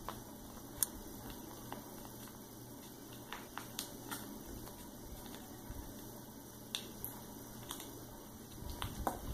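Quiet, scattered crinkles and clicks of a foil sauce packet being squeezed out by hand over a bowl, followed near the end by soft mouth sounds as the black bean sauce is tasted.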